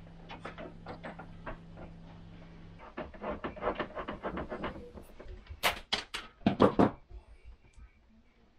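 Hands handling electrical cable and small fittings at a hot water cylinder's element terminal box: a run of small clicks and scrapes, with a few louder sharp clicks between about five and seven seconds in. A faint low hum stops about three seconds in.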